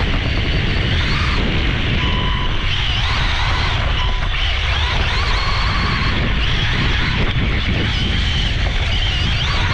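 Brushless electric motor of a LOSI Promoto-MX 1/4-scale RC motocross bike whining, its pitch rising and falling with the throttle, under a heavy steady rumble of wind and dirt noise on the bike-mounted camera's microphone.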